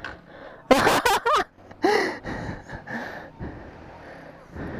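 A person's short, breathy exclamations and gasps: two loud bursts about a second in and another just before two seconds, then fainter breaths.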